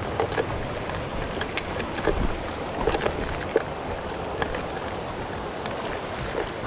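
Small mountain stream running over stones, with irregular crunching footsteps on loose river gravel and stones.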